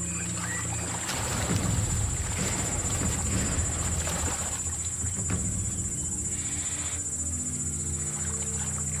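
Lioness and zebra struggling in the water, with a rough, louder stretch of commotion from about one to five seconds in. A steady high insect drone runs throughout, with low sustained music notes under it.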